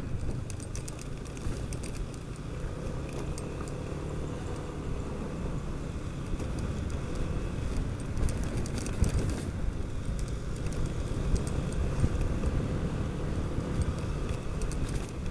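Yamaha NMAX scooter under way: a steady engine and road rumble with wind noise. Light rattling clicks come in short spells now and then, about a second in, around eight to nine seconds in, and near the end.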